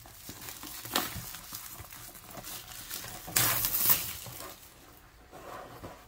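Clear plastic film crinkling as it is peeled and handled off a cardboard box lid, with a sharp tick about a second in and a louder rustle around three and a half seconds in.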